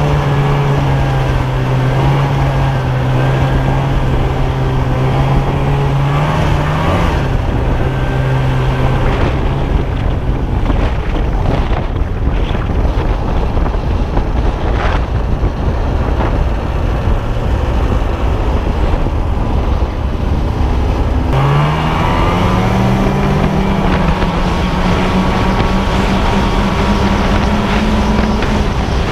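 Snowmobile engine running under way, with wind noise on the microphone. In the middle the engine tone sinks under a rougher rushing noise, then about two-thirds of the way through the engine revs up and its pitch keeps climbing as the sled accelerates.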